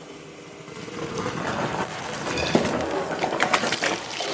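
Liquid poured into a stainless-steel DIY CO2 reactor canister, then the citric acid mix inside fizzing hard and foaming over the rim, a hiss full of small crackles that swells from about a second in.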